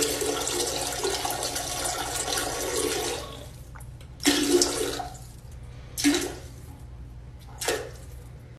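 Toilet flushing: a rush of water lasting about three seconds, then three shorter rushing bursts.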